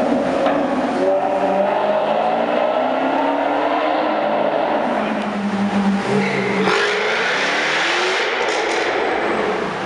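Sports car engines running hard through a road tunnel, their exhaust notes rising and falling in pitch as the cars accelerate. About two-thirds of the way in another car takes over, with a harsher, hissier exhaust note that climbs as it pulls away.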